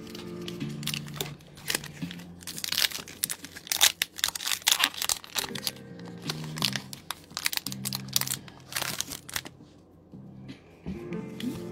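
Foil wrapper of a Pokémon TCG booster pack crinkling and tearing as it is handled and opened, in clusters of sharp crackles, loudest in the middle. Background music with a simple melody of held notes plays underneath.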